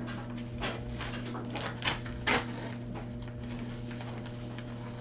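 A few short, sharp clicks and knocks of objects being handled, the loudest about two seconds in, over a steady low hum.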